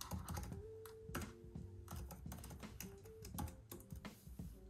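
Typing on a computer keyboard: a quick, irregular run of key clicks as a short command is entered.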